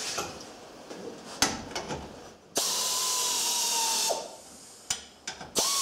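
Cordless drill/driver running in two spells with a steady whine, backing out the bolt of a mower seat armrest, after a few knocks of handling; the fastener's rusted insert just spins in the soft, rotted plywood instead of coming out.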